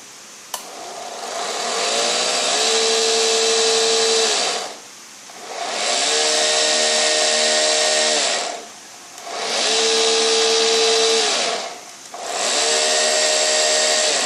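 Electric drive motor of an Armortek 1/6-scale Tiger I model tank, run up four times in a row. Each time it spins up with a rising whine, runs steadily for a few seconds, then winds down. The owner hears an abnormal noise in the motor. A single click sounds about half a second in.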